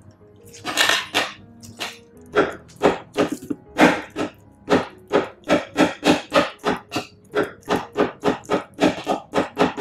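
Metal wire masher mashing avocado in a plastic bowl: repeated soft thuds and squelches, spaced out at first and then settling to about three strokes a second. Faint background music runs underneath.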